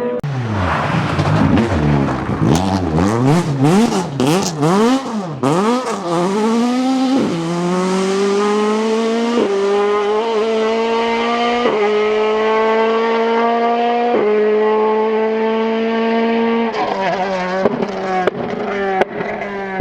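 Ford Escort rally car engine at full race pitch. For the first few seconds the revs swing rapidly up and down with sharp cracks. The car then accelerates hard through several upshifts about two and a half seconds apart, and near the end the revs fall away with pops as it slows and changes down.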